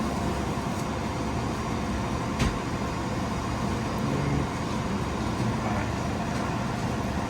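Randell upright freezer's condenser fans running with a steady whir, and a single sharp click about two and a half seconds in.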